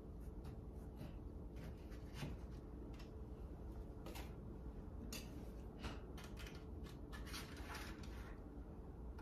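Faint clicks and scraping of a knife cutting a slice of chilled cream cheese pie in a graham cracker crust and lifting it out, with a denser run of scraping about five to eight seconds in.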